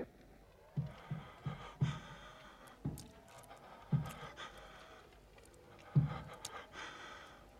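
A person's heavy, uneven breathing: several drawn breaths, with short low thuds at irregular intervals between them.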